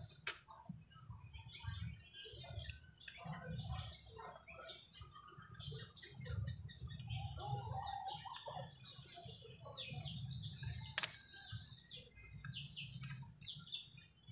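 Small birds chirping and twittering over and over, with a low rumble underneath and an occasional sharp click.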